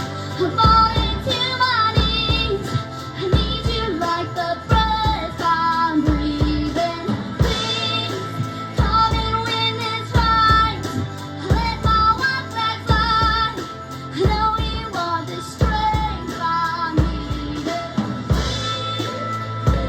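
Music: a high, female-sounding voice singing with vibrato over an accompaniment with a steady beat.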